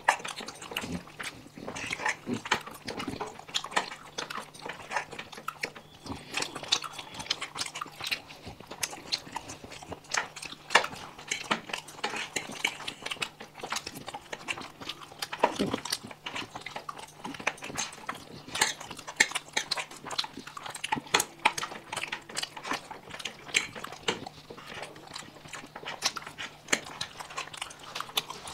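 People eating noodles and pasta close to the microphone: a dense, unbroken run of wet chewing, smacking and slurping clicks.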